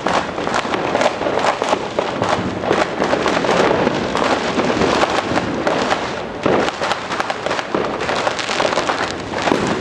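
New Year's Eve fireworks and firecrackers going off all around, a dense, continuous crackle of many overlapping bangs and pops.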